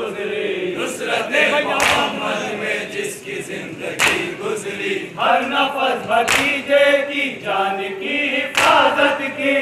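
A group of men chanting a noha (Muharram lament) in unison. A loud slap of chest-beating (matam) comes about every two seconds, keeping time.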